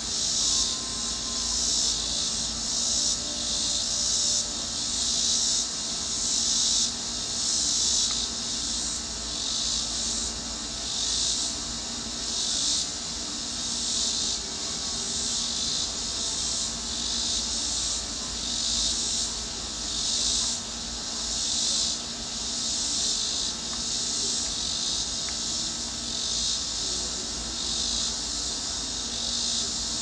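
Insects chorusing outdoors: a high-pitched buzzing that swells and fades about once a second without a break.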